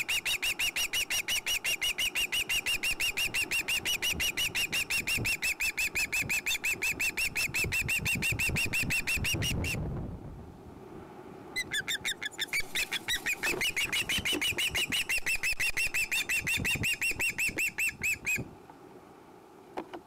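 Juvenile osprey squealing for food: a fast, unbroken string of high, even calls, several a second, that breaks off for about a second and a half near the middle, starts again and stops shortly before the end.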